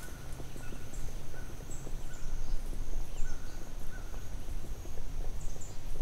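Forest ambience: birds giving short repeated chirps, some low and some very high and thin, over a steady low rumble, with a constant high thin tone and light crackling.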